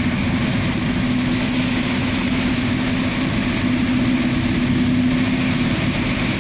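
Heavy rain on a car's roof and windscreen, heard from inside the cabin as a steady hiss over a constant low hum from the car.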